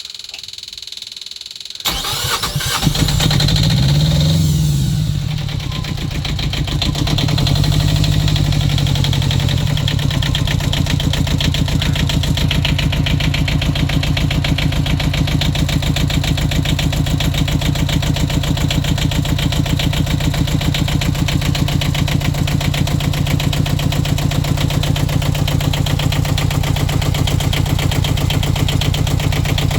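The yacht's new inboard engine on a cold start: a steady buzz for about two seconds, then it cranks and catches almost at once, revs up, settles back, and runs on at a steady idle.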